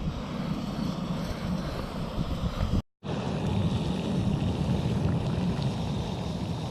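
Coleman FyrePower gas stove burner running at full flame under a pot of water being brought to the boil, giving a steady rushing roar. It breaks off for a moment about three seconds in.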